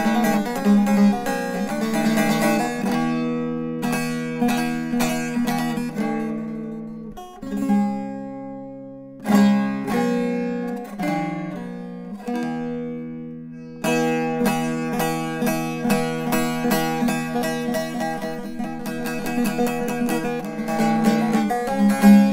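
Left-handed short-neck bağlama (saz) with a 42 mahogany bowl, strummed and picked: a fast melody over ringing drone strings. A couple of single strokes are left to ring out about a third of the way through.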